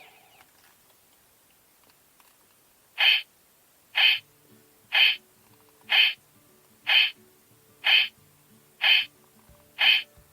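Electronic sound effect from a CSM Kamen Rider Typhoon transformation belt toy: after about three seconds of quiet, a short hooting pulse repeats evenly about once a second, with a faint low tone underneath.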